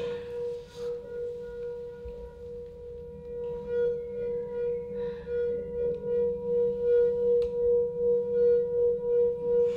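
A sustained ringing tone held on one pitch, its loudness wavering about two to three times a second and growing stronger through the second half, with faint higher tinkling notes around the middle.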